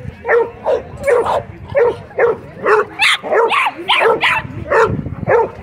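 A dog barking over and over, about three barks a second, the barks coming fastest in the middle.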